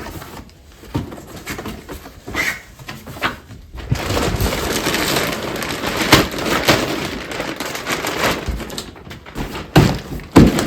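Plastic packaging being handled and crinkled: scattered clicks and knocks at first, then from about four seconds in a continuous crackling rustle with sharp clicks.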